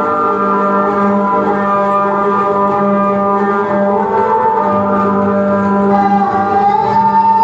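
Music accompanying a dance: a steady low drone under layered sustained tones, with a higher wavering melody line coming in about six seconds in.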